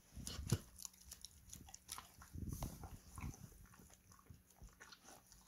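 Border collie taking a piece of fried liver and chewing it: irregular wet chewing and clicks of teeth, with one sharp snap about half a second in.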